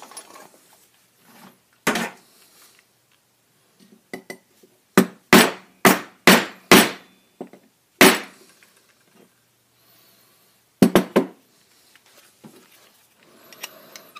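Hammer striking a tool driven into a cast aluminium conduit connector to knock out its small steel insert: sharp metallic bangs, a quick run of five in a row about five seconds in and a close pair later.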